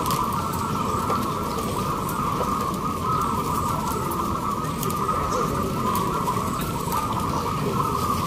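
Chorus of many caged zebra doves (perkutut) cooing at once, their overlapping coos merging into one steady, warbling hum, over a low background rumble.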